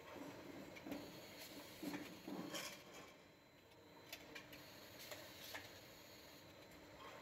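Faint clatter of a small canning line running: scattered light clicks and knocks of cans moving along the conveyor and through the machine, a little louder in the first two and a half seconds.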